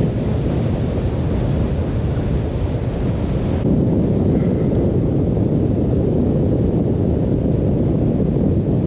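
Wind rushing over the microphone on the open deck of a small water taxi running at speed, mixed with the steady noise of the boat's engine and its hull through the water.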